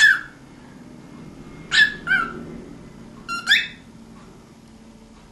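Cockatiel giving short, high two-note calls three times, about a second and a half apart.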